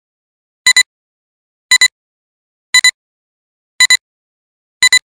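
Film-leader countdown sound effect: a short, high-pitched electronic double beep, repeated five times about once a second.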